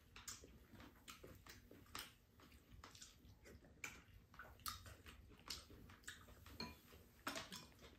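Faint table and eating sounds: scattered soft clicks and taps of wooden spoons and chopsticks against bowls, with quiet chewing, over faint room tone.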